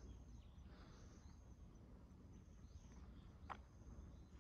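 Near silence: faint outdoor ambience with a thin, high insect drone and low rumble, and a single soft click about three and a half seconds in.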